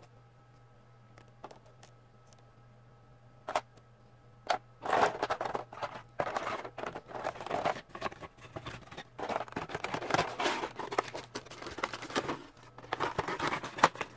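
Packaging being handled, heard as irregular crinkling and rustling. It starts about five seconds in, after a few faint clicks.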